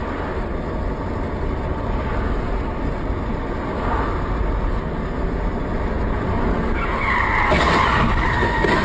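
Steady road and engine noise from a moving car. About seven seconds in, a loud skidding screech begins as an SUV ahead goes out of control in a crash.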